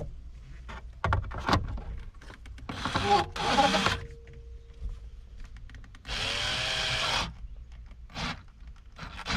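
Plastic dash trim panels being handled and pressed into place: scattered clicks and knocks, with two longer rubbing, scraping sounds about three and six seconds in.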